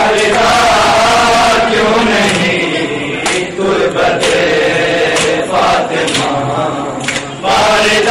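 A crowd of men chanting a noha (Shia mourning lament) together in unison. Several sharp slaps of hands on bare chests (matam) break through the chant at irregular moments.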